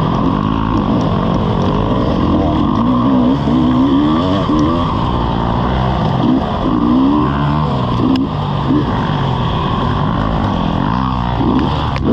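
Dirt bike engine revving up and down as the throttle is worked along a rough trail, heard close up from the bike, with a sharp knock about eight seconds in.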